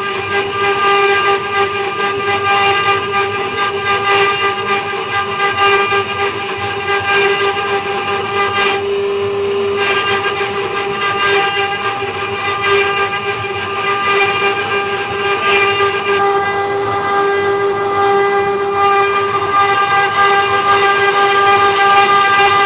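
5-axis CNC router spindle running with a steady high whine while its bit carves a dragon relief into a wooden plank. The cutting noise swells and eases every second or so as the bit works through the wood.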